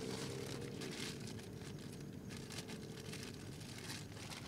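Rustling and crinkling of fabric as a person shifts about inside a tent, in short irregular bursts.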